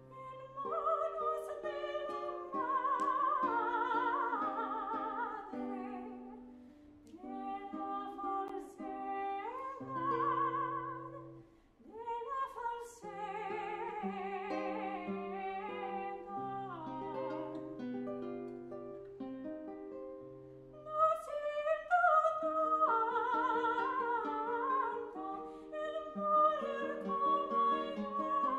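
Operatic soprano singing a Spanish art song with vibrato, accompanied by a plucked classical guitar, in phrases with short breaks between them.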